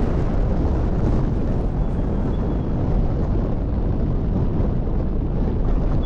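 Wind buffeting the microphone: a steady, loud, pitchless rumble, heaviest in the low end.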